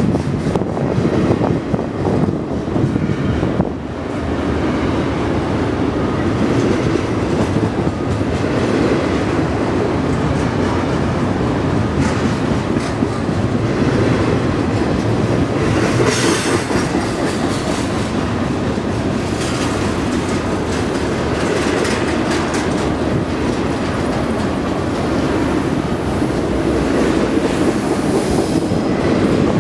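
Union Pacific double-stack intermodal freight train's cars rolling past, a steady noise of steel wheels running on the rails.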